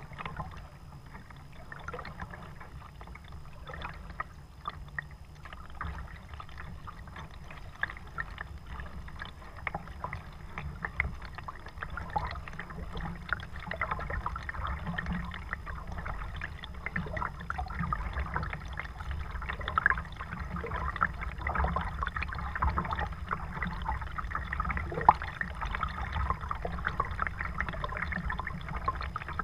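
Kayak paddle strokes: water splashing and dripping off the blade in many small irregular splashes, over a steady low rumble.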